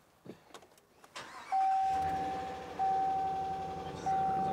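2024 Ram 1500's 5.7-litre Hemi V8 starting on the push button about two seconds in and settling into a steady idle. A dashboard chime sounds a single steady tone over it, restarting about every 1.3 seconds.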